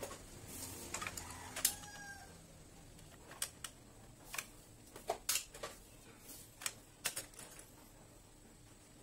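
Irregular light clicks and taps of a screwdriver and metal parts being handled while an opened photocopier is reassembled, the clicks thinning out over the last couple of seconds.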